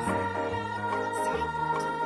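Background music: a soft keyboard or organ tune over a steady bass line.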